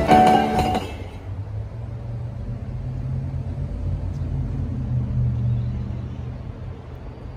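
Intro music ends about a second in, followed by a steady low rumble from an MBTA commuter train approaching from a distance, powered by an EMD GP40MC diesel locomotive; the rumble swells a little in the middle.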